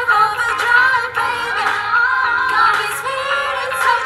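A woman singing a pop song on stage over backing music, the melody carried by her voice with little bass or beat underneath.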